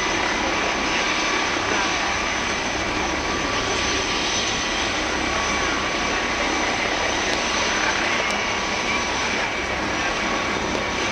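A helicopter's turbine engines running steadily on the ground, ahead of lift-off: a constant high whine over a steady rush of engine and rotor noise.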